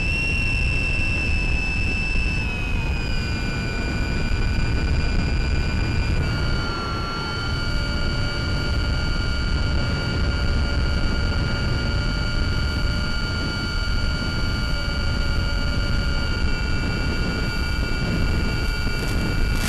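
Brushless motor of a Mini Talon FPV plane (Sunnysky 1240kv turning an 8x6 prop) running in flight, a steady high whine over a loud low wind rush. The whine shifts pitch slightly a couple of times, a few seconds in and again around the middle, as the throttle changes.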